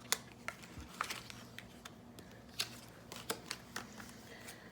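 Flashcards being handled: faint, scattered light clicks and taps, about a dozen, with no steady rhythm.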